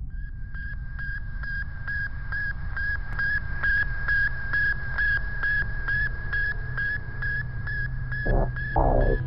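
Electronic sound design for a film intro: a steady high tone pulsing evenly about four times a second over a low rumbling drone, with a short falling sound near the end.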